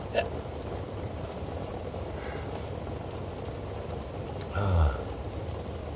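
Heavy rain falling in a steady downpour during a thunderstorm, with a brief louder low sound that drops in pitch about four and a half seconds in.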